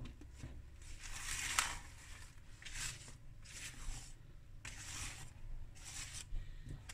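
Spatula stirring thick pound cake batter in a plastic bowl: soft, wet scraping strokes, about one a second.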